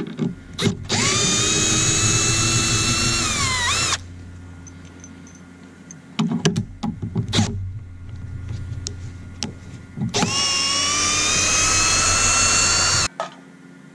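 Milwaukee M12 cordless drill/driver backing screws out of a metal dish mount. There are two runs of about three seconds each: the motor whine rises to speed and holds. The first run ends with the pitch falling as it slows, and the second cuts off suddenly. A few clicks and knocks come between them.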